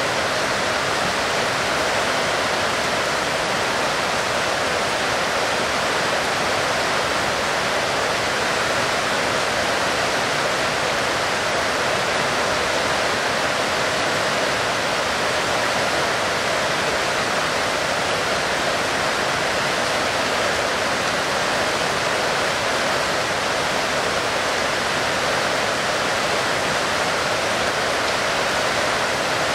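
Heavy rain pouring steadily, a dense, even hiss that does not change.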